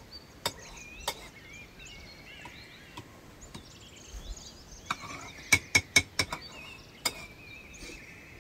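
Sharp clinks and knocks of metal kitchen utensils and pots: two single strikes near the start, a quick run of about four a little past the middle, then one more. Birds chirp in the background.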